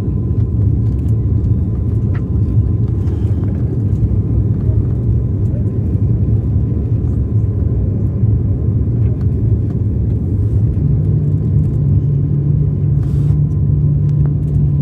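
Car engine and road rumble heard from inside the moving vehicle, a steady low drone. About eleven seconds in, a new, slightly higher engine tone joins and holds.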